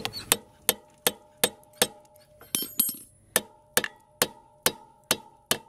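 A hammer tapping repeatedly on the rear-axle chain adjuster of a Yamaha TTR 230 dirt bike, about two to three sharp taps a second with a short pause midway, each tap ringing briefly. The taps drive the adjuster back notch by notch to take up slack and tighten the drive chain.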